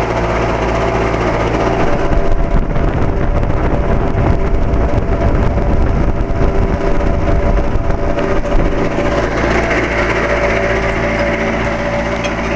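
A 2007 Carrier 2.5-ton central air-conditioner condensing unit running with a steady hum made of several tones. A deeper rumble swells in about two seconds in and fades away about nine seconds in. It is the unit's intermittent weird noise, which the neighbor says it has made off and on for years.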